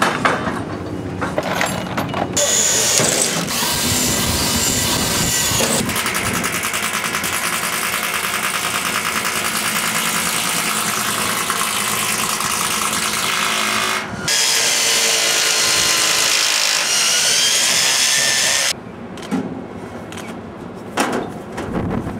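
Power drill drilling into the bottom of a copper steeple finial. It runs steadily from about two seconds in, breaks off for a moment about two-thirds through, then runs again with its pitch wavering before cutting off suddenly near the end.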